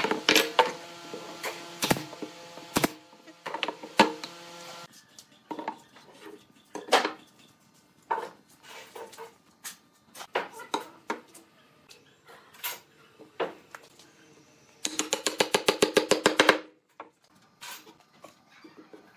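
Mallet knocks on pine parts as joints are tapped together, irregular and sharp. A steady machine hum runs under the first few seconds and stops suddenly, and near the end comes a fast run of rapid knocks.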